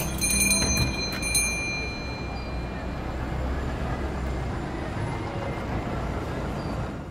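Street traffic: a steady low rumble of passing cars, with a few sharp clicks in the first second or so, fading out near the end.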